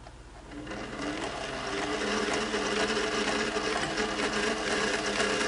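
Singer 401A Slant-o-Matic sewing machine starting up about half a second in and running steadily, its motor held on by a clamp pressing the button-style foot controller. It runs kind of noisy, as the machine has not yet been restored.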